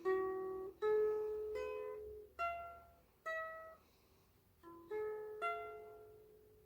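3D-printed PLA mandore with five single Nylgut strings tuned to an open C chord, plucked one note at a time in a slow melody. About seven notes, each left to ring and decay, with a short pause about four seconds in and the last note fading away near the end.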